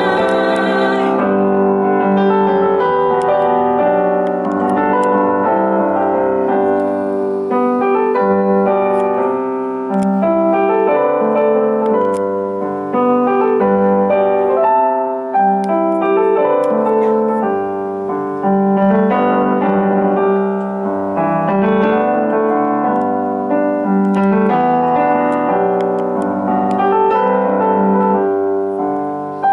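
Piano playing a slow ballad passage of sustained chords. A held sung note with vibrato ends about a second in.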